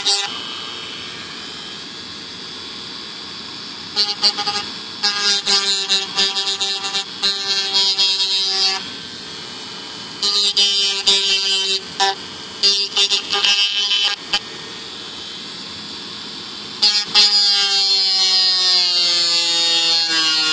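Small handheld electric rotary tool whining in repeated bursts as it cuts the glider's fibreglass, switching on and off with a steady lower hum in between. In the last few seconds its pitch sags slowly, as under load.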